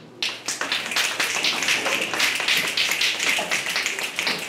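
Audience applauding, breaking out suddenly a moment in after a brief lull.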